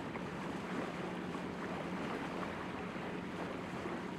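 Steady wind and water noise on the deck of a tall sailing ship, with wind rumbling on the microphone.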